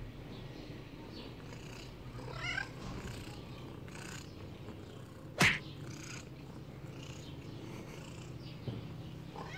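Domestic cat begging for meat held above it, giving a short wavering call a couple of seconds in over a low steady rumble. A single sharp click about five and a half seconds in is the loudest sound.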